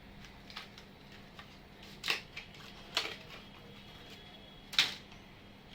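Small clicks and plastic handling noises as an NVMe SSD and its motherboard slot parts are handled, with three sharper clicks, about 2 s, 3 s and 5 s in, the last the loudest. A faint steady hum lies underneath.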